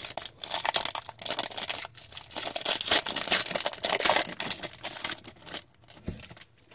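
Crinkling and tearing of plastic trading-card pack wrappers being handled and opened. The dense crackle stops abruptly about five and a half seconds in.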